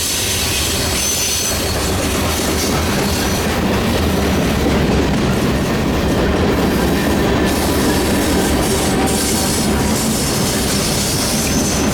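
Freight train cars rolling past, a steady loud rumble and clatter of wheels on rail, with a thin high wheel squeal now and then.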